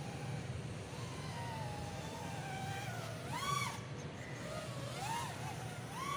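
A 3-inch FPV micro racer quadcopter's motors whining, the pitch rising and falling with the throttle. There is a sharp punch up and back down about midway through and another near the end, over a steady low rumble.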